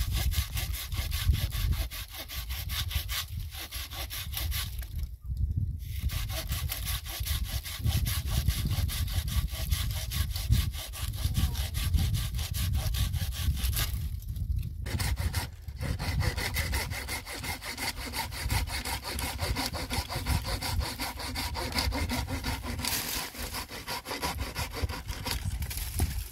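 Wood being sawn with a hand saw: a steady run of rapid, rhythmic saw strokes, with two brief pauses.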